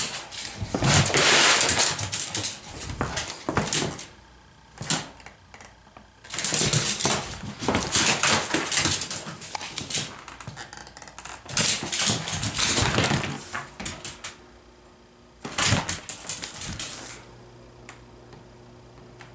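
A beagle's claws clicking and scuffling on a hard floor in four bursts of a few seconds each, with quieter gaps between them.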